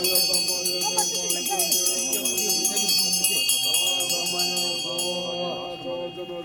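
Music of a chanted mantra: voices singing over steady held tones, with a quick jingling rhythm of small bells that stops about five seconds in.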